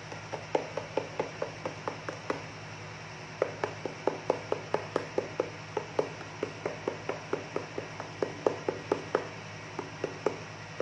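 Rhythmic tapping on a gold pan while panning paydirt, sharp knocks about four a second with a short ring. A first short run, a pause of about a second, then a long run that thins to a few last taps near the end.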